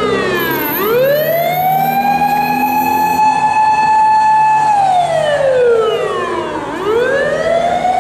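Siren of a Tokyo Fire Department pump truck on an emergency run, passing close by: it winds up to one long steady tone, holds it, then glides slowly down, going through this cycle twice. A low engine hum sits underneath.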